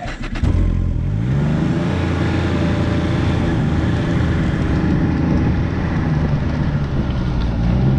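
Snowmobile engine pulling away and running at speed, its pitch climbing as it accelerates about a second in and rising again near the end.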